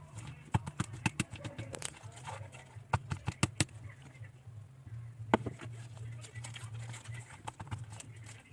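Fork clicking and tapping irregularly against a small pot while stirring thick slime, with one louder knock about five seconds in. A steady low hum runs underneath.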